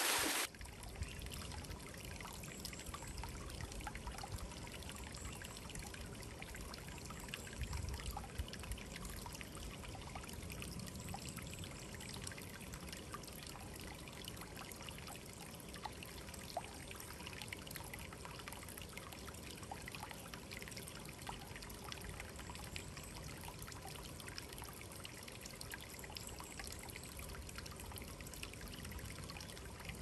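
Water trickling and pouring over rocks in a small mountain waterfall and stream: a steady, fairly quiet splashing with many small drips. A louder rush of water cuts off about half a second in.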